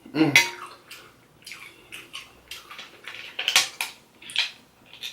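Wet, close-up eating sounds from a buttery seafood boil eaten by hand: a loud smack at the start, then a string of short, irregular smacks, sucks and clicks from picking at and eating the seafood.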